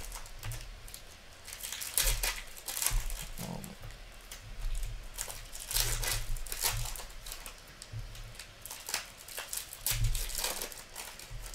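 A stack of hockey trading cards handled and flipped through by hand: irregular dry rustles and flicks of card stock sliding over card, with a few soft low bumps.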